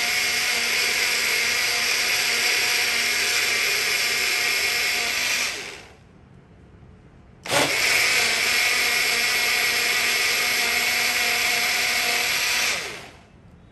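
Electric mixer grinder running at full speed as it blends mango, coconut water, coconut malai and ice into a smooth shake. It spins down about six seconds in, starts again with a sudden jump a second and a half later, then runs until it spins down near the end.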